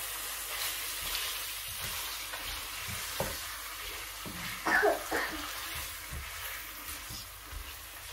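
Chicken drumsticks and fried onions sizzling in oil in a nonstick pan while a slotted spatula stirs and turns them. There is a louder scrape of the spatula against the pan about five seconds in.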